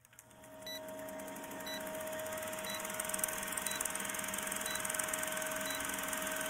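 Film projector sound effect for a countdown leader: a fast, even mechanical clatter with a steady hum, fading in over the first second, and a short beep about once a second as the numbers count down.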